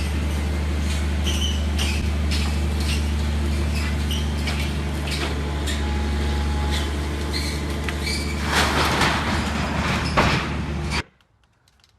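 A machine running with a steady, loud low drone, with knocks and rattles over it and a louder noisy stretch late on, cutting off suddenly about a second before the end.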